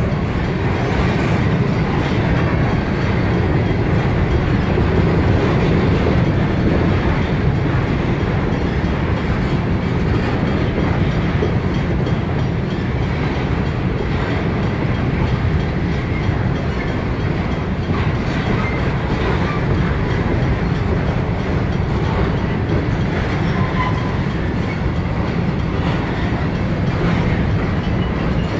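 Freight train of loaded-looking covered hopper cars rolling past close by: a steady, loud rumble of steel wheels on the rails with some clatter over the rail joints.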